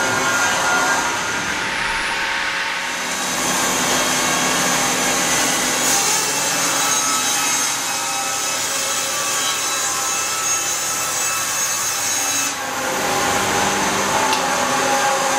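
Pilous CTR 800 S log band sawmill running, its band blade sawing through a log with a steady mechanical whine and hiss. The sound shifts abruptly about twelve seconds in.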